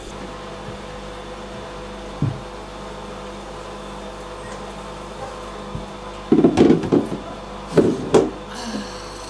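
Steady hum with a short knock about two seconds in, then two clusters of loud clattering knocks about six to eight seconds in as a plastic step stool is moved and set down on a tiled floor.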